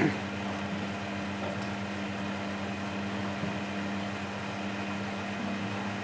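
Miele Hydromatic W734 washing machine running with a steady hum, with one short knock right at the start.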